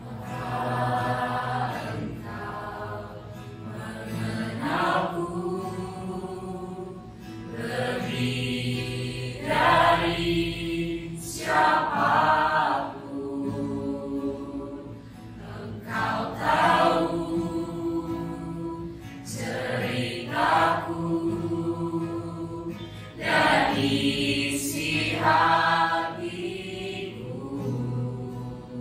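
Mixed choir of men and women singing a worship song in phrases a few seconds long, accompanied by an acoustic guitar.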